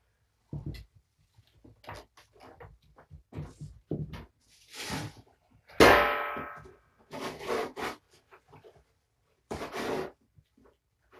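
Kittens playing: scattered light taps, thumps and rustling. About six seconds in comes one loud clang that rings and fades over about a second.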